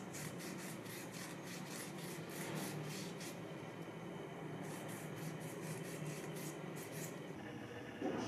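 A cloth rag rubbing a wooden knife handle in quick back-and-forth strokes, about four or five a second, pausing briefly a little past three seconds before the strokes resume. A short knock near the end.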